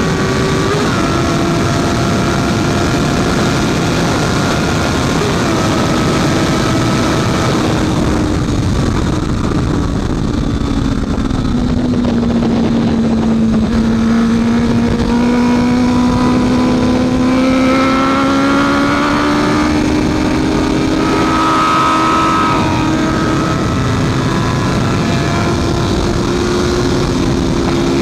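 Honda CB650F's inline-four engine running hard on a race track behind a steady rushing noise. The engine note steps in pitch a few times early on, sinks low around the middle as the bike slows, then climbs again as it accelerates.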